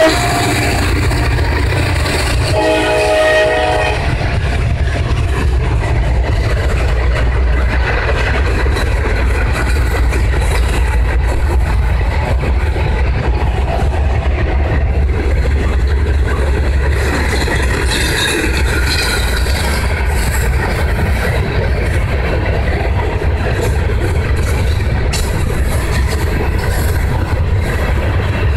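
A freight locomotive's horn sounds one short blast about two seconds in. Then the loaded rock hopper cars of the CSX freight train roll past with a steady rumble and rapid clatter of wheels on the rail joints.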